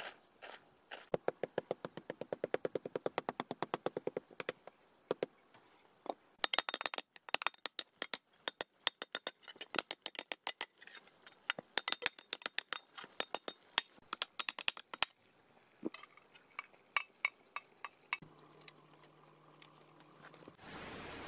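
Long runs of sharp metallic knocks, clinks and scrapes from a metal cooking pan being worked by hand, several strikes a second. The knocking thins out and stops, leaving a faint steady hum near the end.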